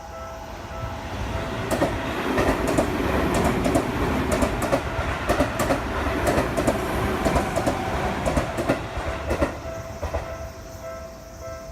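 A Seibu Shinjuku Line electric commuter train passes over a level crossing, its wheels clattering over the rail joints for about eight seconds. The crossing's warning bell rings a repeating ding at the start and again near the end as the train clears.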